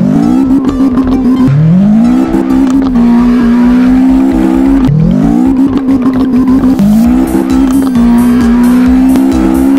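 Race-car engine sound effect, played at a constant loudness: the engine revs up, climbing in pitch, then holds at a steady note, four times over.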